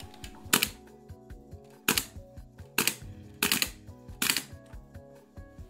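Background music of steady pitched notes, cut by five sharp metallic clacks at uneven gaps of about a second, the last two doubled. The clacks come from a gas blowback airsoft pistol's metal parts clamped in a wooden shooting stand.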